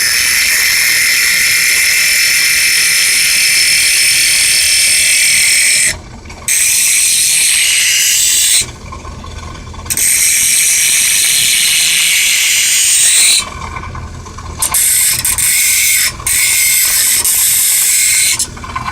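Belt-driven bench grinder grinding a nail held in pliers: a loud, harsh, high-pitched grinding noise that breaks off about five times as the nail is lifted off the wheel, with the motor still humming more quietly in the gaps.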